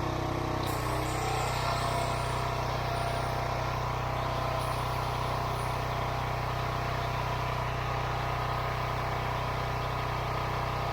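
Pressure washer running steadily while spraying, a constant engine drone under the hiss of the spray.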